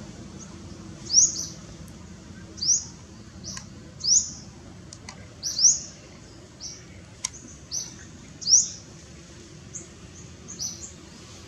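A bird chirping repeatedly: short, high, rising chirps every second or so, some in pairs. A couple of sharp clicks come in the middle.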